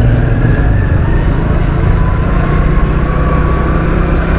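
Motorcycle engine running steadily as the bike rides along, a continuous low hum.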